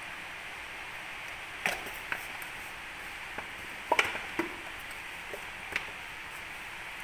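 A few light clicks and taps as a metal spoon and a plastic spice jar knock against a bowl while ground chili is added to flour, with a small cluster about four seconds in, over a steady background hiss.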